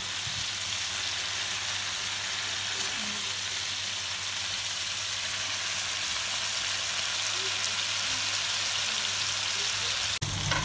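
Pork cubes and quartered onions sizzling steadily in hot oil in a nonstick frying pan, over a steady low hum. The sound cuts out for an instant near the end.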